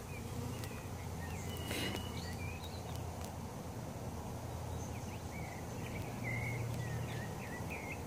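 Swarm of honeybees buzzing steadily around an open hive, with small birds chirping in short calls now and then.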